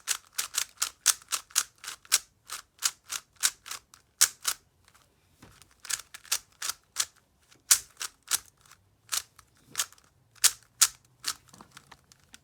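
Plastic puzzle cube being twisted by hand: a quick, irregular run of sharp clicks from its turning layers, with a couple of short pauses.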